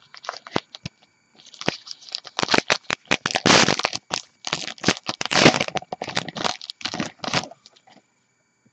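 Crinkling and tearing of a trading-card pack's foil wrapper as it is handled and torn open: scattered sharp crackles at first, growing dense about two seconds in, loudest in the middle, and stopping near the end.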